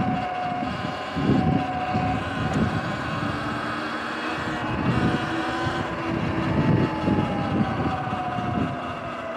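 Sur-Ron electric dirt bike's motor whining steadily under way, with the whine falling slowly in pitch over the last few seconds. Wind buffets the microphone in uneven gusts throughout.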